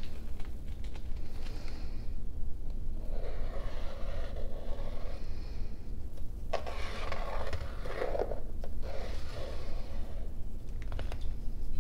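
Paint pen's tip scratching along the edge of a steel ruler on a stretched canvas in two drawn strokes, the first about three seconds in and a longer one starting after six seconds, with a few small clicks. A steady low rumble runs underneath.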